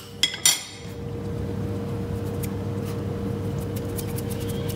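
Steady electric hum under a light hiss with faint crackling, from the hot cast-iron skillet on the induction hob. Two sharp clinks come about half a second in.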